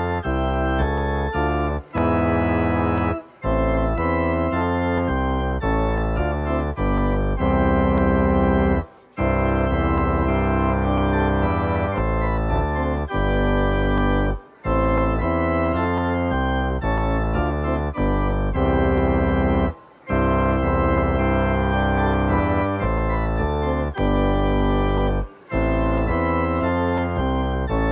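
Organ playing slow, sustained chords as the service's closing music, with several brief breaks between phrases.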